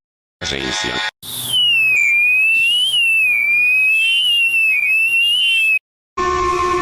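Emergency alert sounds played one after another with short silent gaps: a brief sound, then a single high, whistle-like electronic tone wavering up and down in pitch for about four and a half seconds, then a steadier alarm of several held tones starting near the end.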